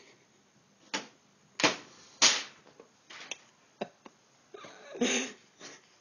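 A series of sharp clacks and knocks, five of them spread over about three seconds, followed by a longer scuffling rustle about five seconds in.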